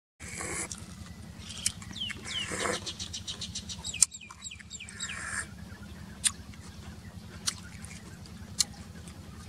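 Close-up eating sounds of cooked snails: slurping and sucking the meat from the shells, with short squeaky sucks in the first half and several sharp clicks of shell and toothpick, over a steady low hum.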